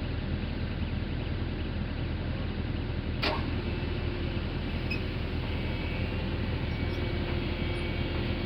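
Diesel engine of heavy pile-driving machinery running steadily at an even low hum, with no hammer blows. One sharp click about three seconds in.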